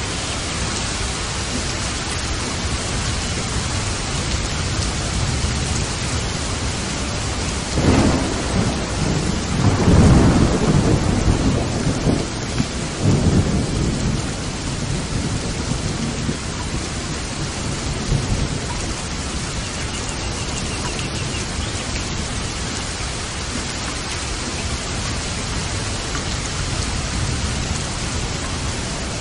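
Steady rain with thunder. About eight seconds in a thunderclap breaks in, rolls into a rumble that is loudest around ten seconds, and dies away a few seconds later.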